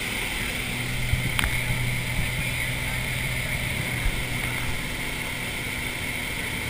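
Small aircraft's engine and propeller running steadily, heard from inside the cabin as a constant drone. A sharp click about a second and a half in and a few soft knocks come from people moving about the cabin.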